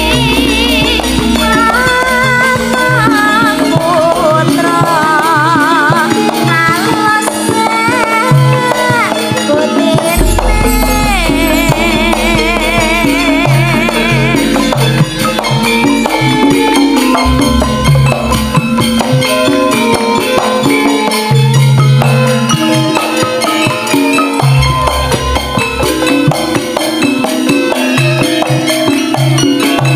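A sinden (female Javanese singer) singing a melismatic, wavering vocal line into a microphone over a live gamelan-campursari band with a steady beat and bass. About halfway through her voice drops out and the band plays on.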